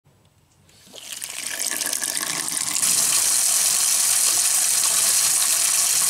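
Kitchen faucet running through a swivel water-saving aerator nozzle: the water comes on about a second in as a weaker low-flow stream, then about three seconds in jumps suddenly to a louder, steady full-flow gush.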